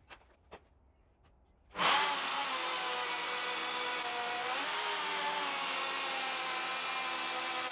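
A few light taps, then about two seconds in an electric power tool switches on and runs at high speed. Its pitch sags briefly twice, as if under load.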